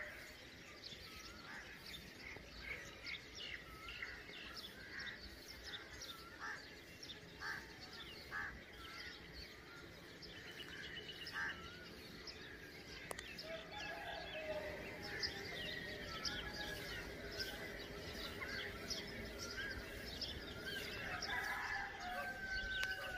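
Many birds chirping and calling at once, faint, over a steady low outdoor hum.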